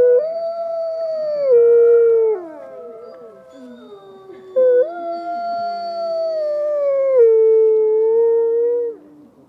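Several dogs howling together in long, overlapping howls that slide slowly down in pitch. A second round of howling starts about four and a half seconds in and stops about nine seconds in.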